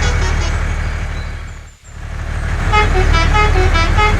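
A toy vehicle's electronic engine hum with a fast beeping tune over it. It fades out about two seconds in, then comes back.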